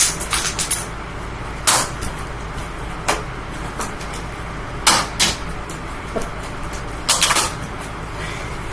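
Amazon Basics box fan running with a steady hum while small plastic Lego pieces are thrown into it. The pieces clatter sharply against the spinning blades and grille in several separate hits, a few of them in quick clusters.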